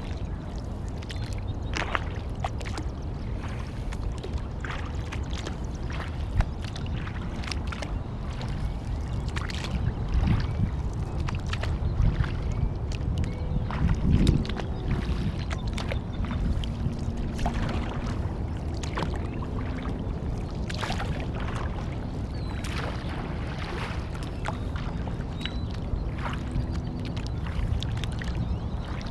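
Kayak paddling on a lake: water splashing and dripping off the paddle at irregular moments, over a steady low rumble.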